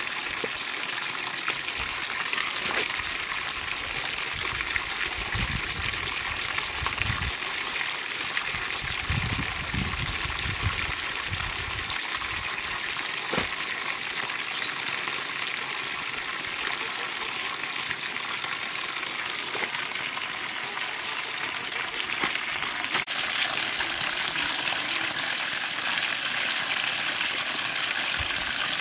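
Water from an outdoor standpipe tap pouring steadily into a plastic bucket of clothes, a continuous gush that gets louder about two thirds of the way through.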